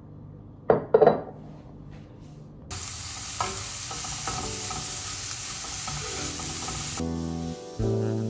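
Julienned carrot and zucchini strips sizzling in a stainless steel frying pan as they are stirred with a spatula, starting about three seconds in. Piano music comes in near the end.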